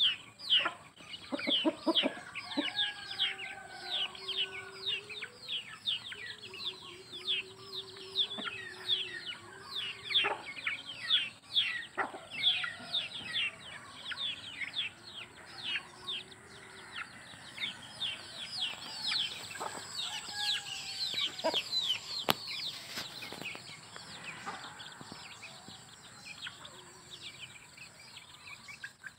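Chicks peeping nonstop in quick, short, falling peeps, with a hen's low drawn-out clucks now and then underneath; the peeping thins out near the end.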